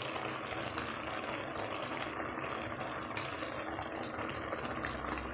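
Grated ash gourd cooking in sugar syrup, bubbling steadily in a metal kadai, with one light click about three seconds in.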